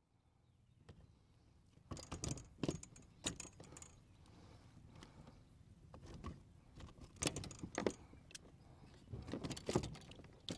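Irregular knocks and rattles of a fish flopping on a plastic measuring board in a kayak while hands try to hold it still, in clusters of quick clatter with handling noise between.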